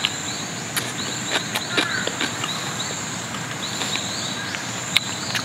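Small birds chirping in quick repeated notes over a steady high buzz, with short sharp clicks scattered through.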